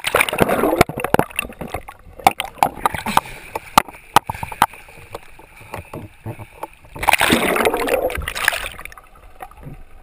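Sea water splashing and gurgling around a waterproof action camera as it dips under the surface and back out, with many sharp knocks and clicks. Two louder rushes of splashing come right at the start and about seven seconds in.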